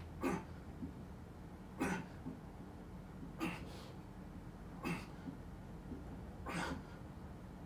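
A weightlifter's short, forceful exhales, one with each rep of an overhead log press, coming about every one and a half seconds, five in all.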